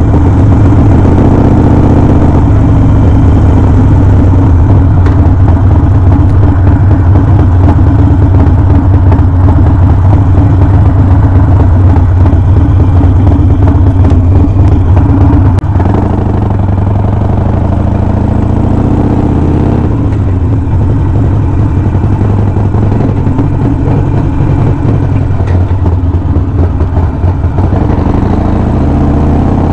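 Harley-Davidson Sportster's V-twin engine running steadily, dropping slightly in level a little past halfway.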